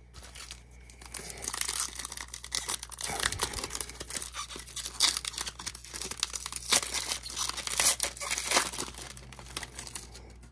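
A trading-card pack's foil wrapper being torn open and crinkled by hand, a continuous run of sharp crackling and tearing.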